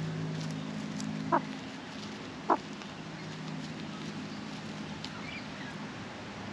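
Australian magpie giving two short, clipped clucking calls a little over a second apart, over a low steady hum that fades out early on.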